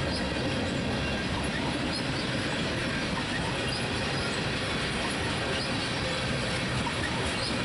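Freight train tank cars rolling past, a steady rumble of steel wheels on rail.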